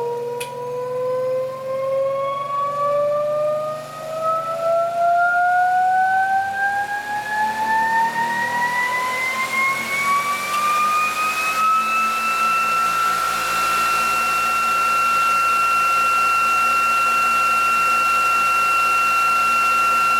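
Electric motor and ReGenX generator prototype spinning up. The whine rises smoothly in pitch for about twelve seconds as the rotor accelerates, then holds at one steady pitch once it reaches running speed.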